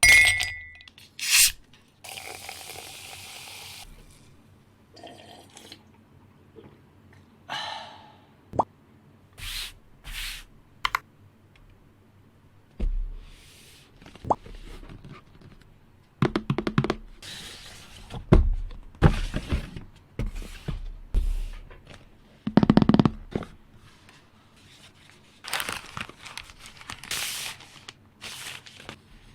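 Irregular knocks, clicks and rustles of keyboard parts and packaging being handled by hand. From about halfway through, a frosted polycarbonate keyboard case is being unboxed, with low thuds as pieces are set down.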